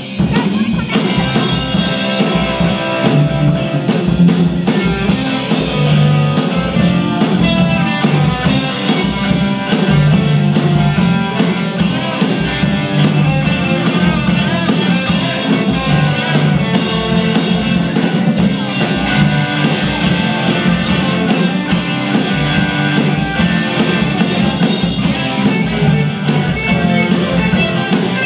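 Live rock band playing a song: drum kit keeping a steady beat under electric guitar, acoustic guitar and bass guitar.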